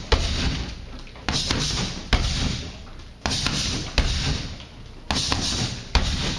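Kickboxing strikes landing in a steady repeated combination of jab, cross, switch step and round kick. Lighter taps come with a heavy thud about every two seconds.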